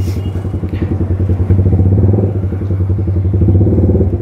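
Yamaha R15 V3's single-cylinder engine through a loud aftermarket SC Project exhaust, running at low revs in second gear at walking pace: a rapid stream of exhaust pulses that swells a little with small throttle openings. A brief sharp click comes right at the start.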